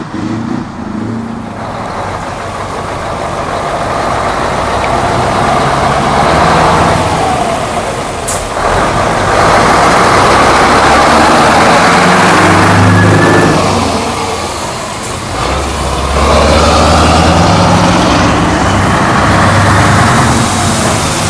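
Scania V8 diesel trucks pulling away one after another, their engines revving loudly as they accelerate past. The roar builds and falls with each truck, with brief dips in between.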